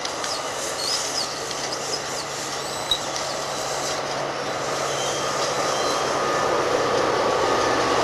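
NJ Transit bilevel passenger train rolling past, a steady wheel-on-rail rumble growing louder toward the end, with a few brief high squeals from the wheels and a single sharp click about three seconds in.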